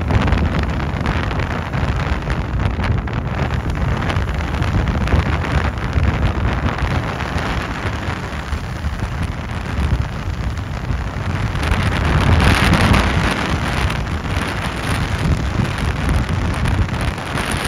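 Wind buffeting the microphone: a steady, noisy low rumble that swells into a stronger gust about twelve seconds in.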